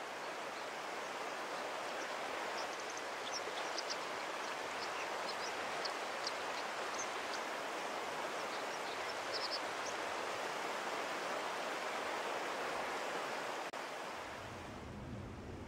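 Mountain stream rushing steadily over rocks, with faint, scattered high chirps of a white-throated dipper through the middle. Near the end the water fades and a low steady hum comes in.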